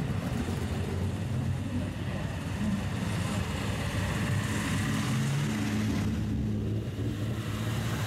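Engines and exhausts of classic Japanese cars running at low speed as they roll slowly past one after another, with a brief rise in engine pitch midway.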